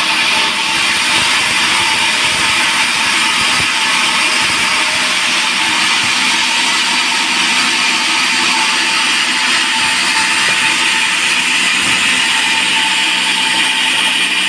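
Band sawmill running steadily, its blade cutting lengthwise through a long teak log with a continuous high hiss.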